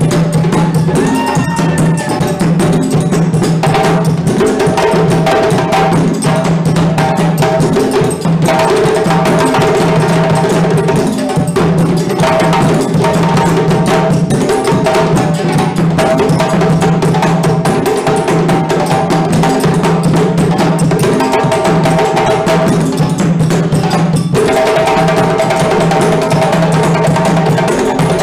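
West African drum ensemble playing a dense, continuous rhythm on hand drums and a stick-played bass drum. The rhythm breaks off briefly twice.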